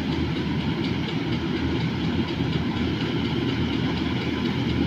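Combine harvester running while cutting and threshing paddy: a steady, low mechanical rumble with a fast rattling texture.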